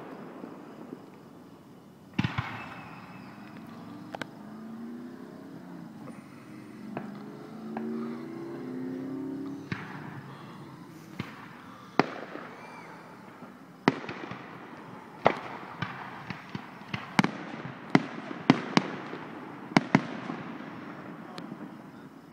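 Aerial fireworks shells bursting: sharp, echoing booms and cracks, a few seconds apart at first, then coming faster, about one a second, in the second half.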